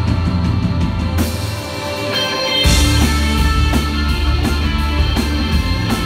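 Live rock band playing an instrumental passage: electric guitars, bass and drum kit, loud. About a second in, the hi-hat stops and the bass and drums drop away. Near the middle, the full band comes back in together.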